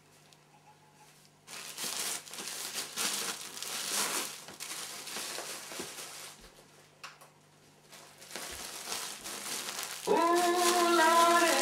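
Clear plastic bag crinkling in several bouts as carded wool is stuffed and pressed into it. About ten seconds in, music with singing comes in, louder than the crinkling.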